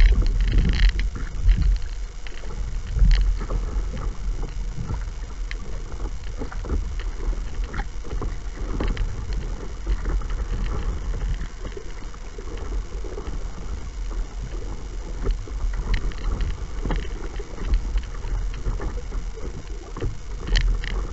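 Water lapping and splashing against the bow of a small paddle craft under way, with scattered short knocks and splashes, over a low rumble of wind buffeting the microphone.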